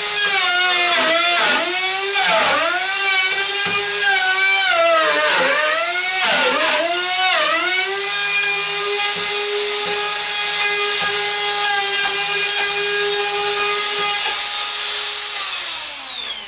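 Wood router cutting a door-latch mortise in a door edge through a template: a high whine whose pitch dips again and again as the bit bogs under load during the first half, then holds steady. Near the end it is switched off and spins down, the pitch falling away.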